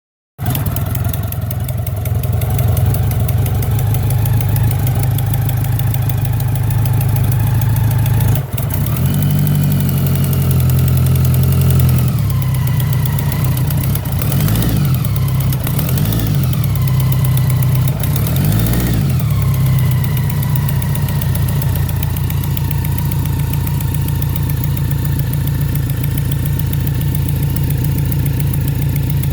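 BMW K100RT's inline-four engine idling, then held at a faster idle, then revved in three quick blips that rise and fall before it settles back to idle. The owner suspects an exhaust leak.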